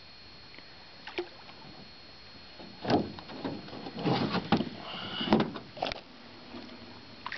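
Water splashing and knocks against the boat's side as a big bass is lowered into the water at the gunwale and held there. The splashes and knocks come in a cluster from about three to six seconds in.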